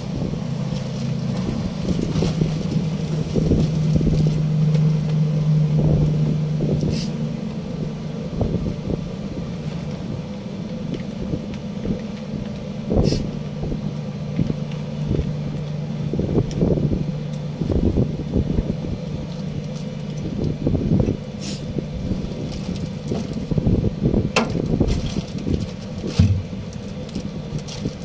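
Steady low machinery hum, its tone swelling and easing at times, with wind on the microphone and scattered light knocks and clicks.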